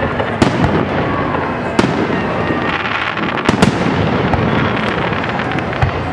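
Aerial fireworks shells bursting: several sharp bangs, the strongest about half a second, two seconds and three and a half seconds in, over a continuous crackling wash of the display.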